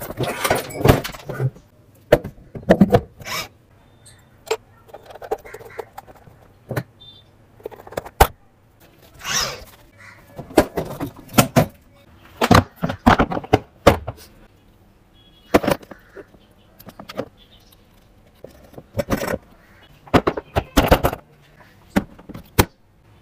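Irregular knocks, clacks and rattles of hard plastic parts and tools being handled while a children's ride-on electric jeep is assembled, with some sharp single clicks and short clattering runs.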